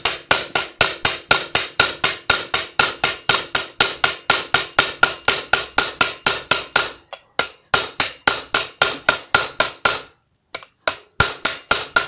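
Rapid hammer blows, about four a second, on the back of a ground-down hammer head held against the bent lip of a Honda Dio AF-62 scooter wheel rim, each blow a ringing metal clank; the hammer is knocking a dent out of the rim, which was bent during tyre fitting. The blows stop briefly twice in the second half and then resume.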